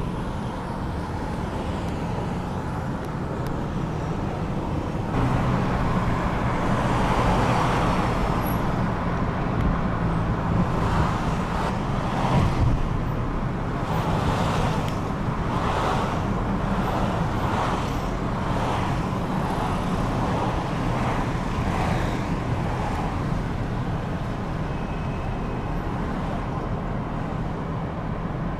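Outdoor field recording of road traffic: a steady low rumble with vehicles passing, louder through the middle in a run of swells.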